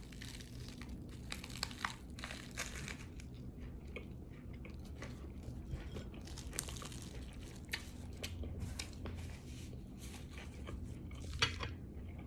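A person biting into and chewing a hamburger with lettuce and onion on a roll, with faint crunching and scattered small clicks over a steady low hum.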